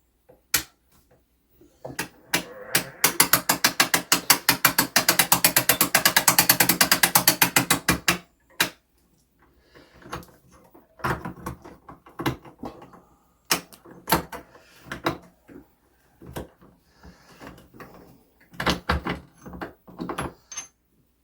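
Ratchet of a clock mainspring winder clicking rapidly and evenly as its crank winds the mainspring tight, small enough to come out of its barrel. After about six seconds the clicking stops, and scattered single clicks and metal handling noises follow.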